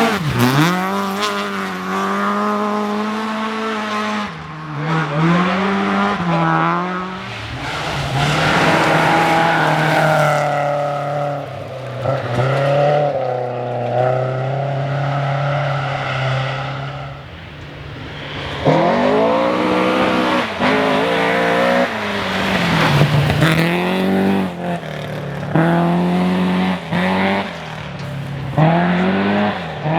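Rally car engine driven hard on a special stage, revving up through the gears. Its pitch repeatedly climbs and then drops sharply at each shift or throttle lift.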